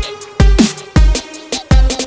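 Electronic background music with a beat of deep, pitch-dropping kick drums and hi-hats, sparser in the middle.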